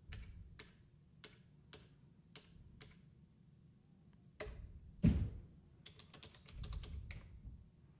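Typing on a computer keyboard: single keystrokes about every half second, then a heavier low thump about five seconds in, followed by a quick run of keystrokes.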